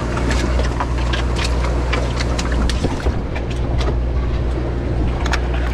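Boat's engine running with a steady low drone, under a wash of water and deck noise with scattered sharp clicks and knocks.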